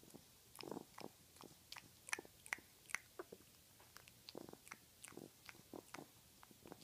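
Sleeping French Bulldog puppy's faint, irregular wet mouth clicks and smacks, with a few short snuffling breaths, from a puppy sleeping with her tongue out.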